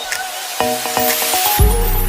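Background electronic music: short plucked synth notes over a swelling hiss, then a deep bass and sustained chords come in about one and a half seconds in.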